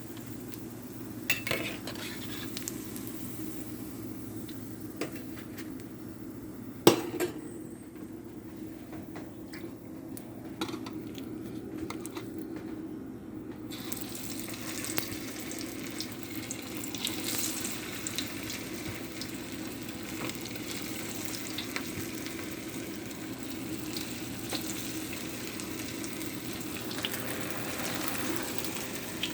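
Food frying in hot oil in a pan, sizzling while a utensil stirs it, with scattered clinks of the utensil on the pan; a sharp clank about seven seconds in is the loudest sound. The sizzle grows brighter about halfway through.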